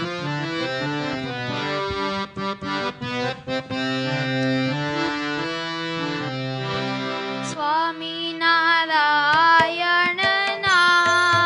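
Harmonium playing the introduction of a Gujarati devotional kirtan, with a few short drum strokes. About two-thirds of the way in, a voice begins singing the kirtan's opening line over the harmonium.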